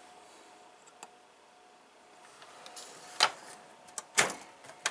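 Toolbox drawers and tools being handled: a faint click about a second in, then two sharp clacks near the end, over a faint steady hum.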